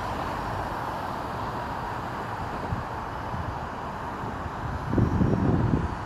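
Skydio R1 drone's propellers humming steadily in flight, mixed with a steady outdoor traffic rumble, with a louder low rumble about five seconds in.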